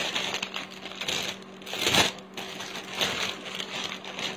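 Clear plastic jewellery packets crinkling and rustling as they are handled, with the loudest crackle about two seconds in.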